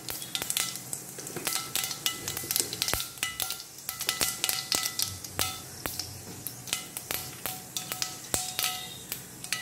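Mustard seeds spluttering in hot oil as they begin to pop, giving a fast, irregular crackle of sharp pops.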